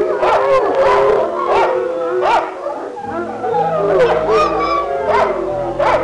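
Dog whining and howling in short, repeated cries that rise and fall in pitch, over background music.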